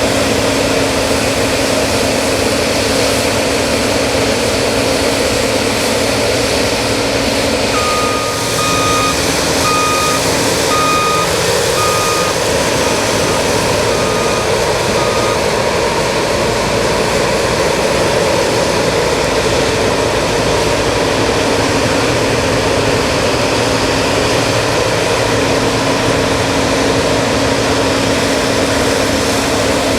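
New Holland CX8090 combine harvester running steadily at work. About a quarter of the way in, an electronic beeper sounds about once a second for some seven seconds, fading out.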